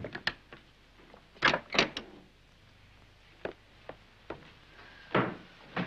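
Wooden interior door being opened and handled: sharp latch clicks and a few knocks, loudest about a second and a half in, then scattered single light clicks.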